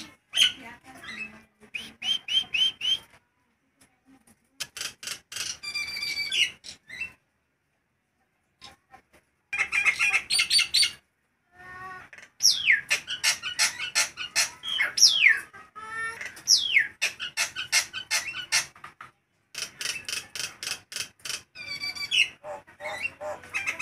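Caged jalak nias myna calling loudly in bursts: fast runs of sharp repeated notes mixed with sliding whistles, with a pause of about two seconds partway through.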